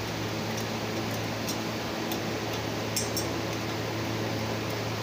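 Light metallic clicks and clinks as a screwdriver works the screws of an EGR valve assembly, a few scattered ticks with a quick double click about three seconds in, over a steady fan-like hum.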